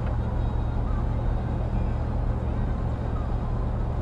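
Car driving at about 53 mph, heard from inside the cabin: a steady low engine and tyre drone with road noise over it.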